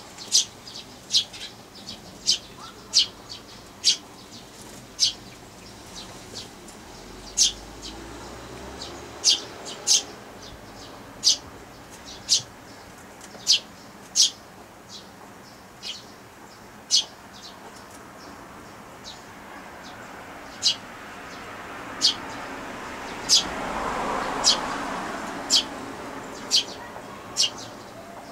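Eurasian tree sparrows chirping: short, sharp chirps repeated about once a second. A soft rushing noise swells and fades a few seconds before the end.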